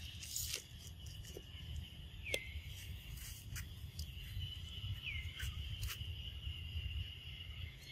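Insects trilling steadily in a high, even drone, with two short falling chirps, one about two seconds in and one about five seconds in, a few light clicks, and a low rumble underneath.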